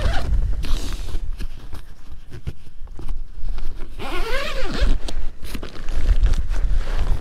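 Door zipper of a Clam C360 fabric ice-fishing hub being unzipped: a run of short ragged zips, with one longer smooth pull about four seconds in that rises and falls in pitch, and a low rumble underneath.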